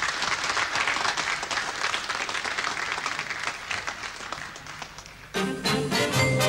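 Audience applauding, fading a little, then about five seconds in a lively swing-style quickstep dance tune starts up.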